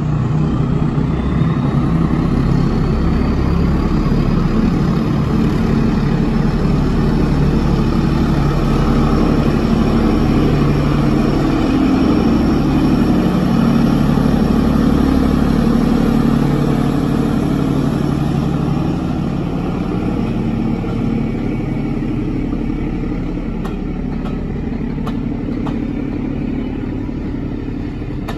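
Diesel locomotive engine working hard as it hauls a train up a steep 1-in-36 gradient and passes close by, with a rising whine in the first few seconds. Near the end the coaches roll past with wheels clicking over the rail joints.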